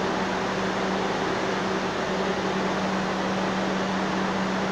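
Steady hum and hiss from a New York City subway train on a far track, with a low steady tone under the noise.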